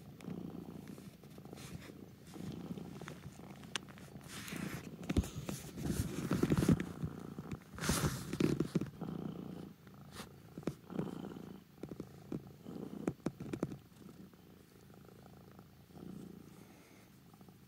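Domestic cat purring steadily and close up. Between about four and nine seconds in, louder rubbing and rustling noise covers it as the cat pushes her face and fur against the microphone.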